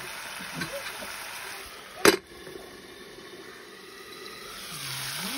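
Vegetables simmering in a pan with a soft bubbling hiss. About two seconds in, a single sharp clank as a metal lid is set on the pan, after which the bubbling is quieter.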